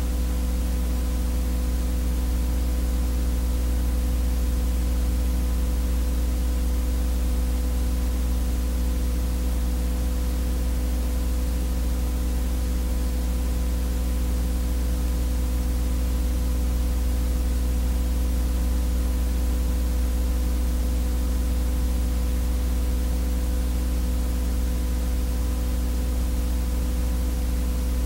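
Steady electrical buzz with hiss, the transfer noise of a silent film: a low hum with a few fixed higher tones above it, unchanging throughout.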